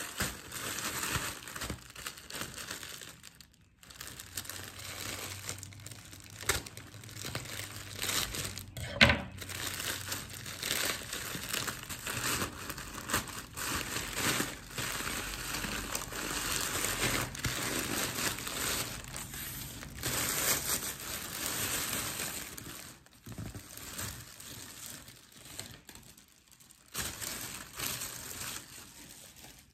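Plastic courier mailer bag crinkling and rustling as it is handled and torn open, with one sharp, loud crack about nine seconds in. Near the end, a gold foil-like wrapper crinkles as it is unfolded.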